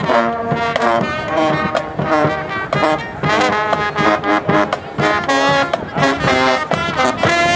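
Marching band brass, sousaphones among them, playing a tune in short, punchy notes over drums.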